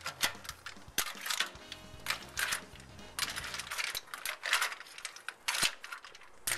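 Mussel and clam shells clattering and clinking against the pan as they are stirred with a spoon, in irregular bursts of clicks and scrapes, over background music.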